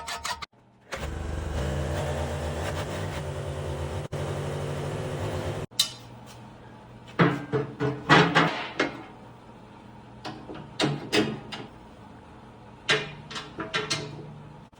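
Machinery running steadily for a few seconds, then cutting off abruptly. After that come several clusters of short, loud bursts of mechanical noise.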